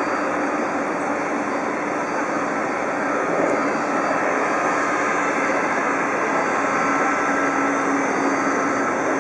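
Jet airliner engines running at taxi power: a steady, even rush of engine noise with a faint low hum running through it.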